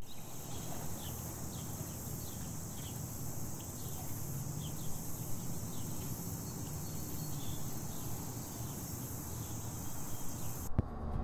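Steady high-pitched insect chorus over a low rumble, with a few short falling chirps scattered through it. Music cuts in near the end.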